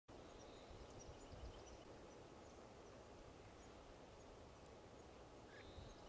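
Near silence: faint outdoor ambience with a few faint, distant bird chirps.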